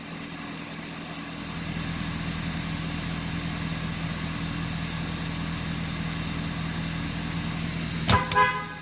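Pickup truck engine idling steadily on fresh oil, left running a minute to circulate it before the level is checked; it grows louder about a second and a half in. A short knock and a brief voice come near the end.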